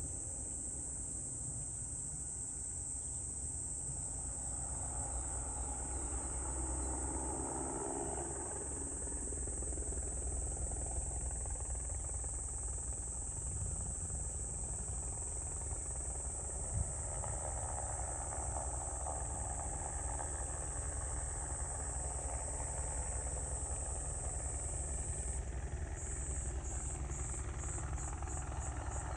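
Insects trilling steadily, high-pitched, over a low engine-and-rotor rumble from a crop-spraying helicopter that swells and fades twice. About three-quarters of the way through, the insect trill turns into a fast, even pulsing.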